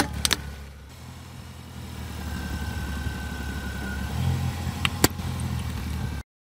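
Car tyre creeping over stainless steel cups, with a sharp metallic crunch at the start, then a car engine running steadily at low speed. About five seconds in there is a sharp crack as eggs burst under the tyre.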